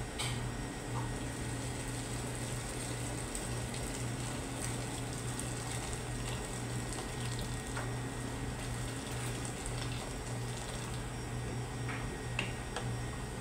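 Water poured from a jug into a stainless steel pot of lentils and vegetables on the stove, splashing into the mixture, with a few clicks of a wooden spoon against the pot near the end. A steady low hum runs underneath.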